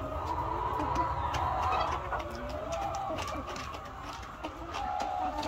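A flock of laying hens clucking and calling over one another, with scattered sharp clicks and a steady low rumble underneath.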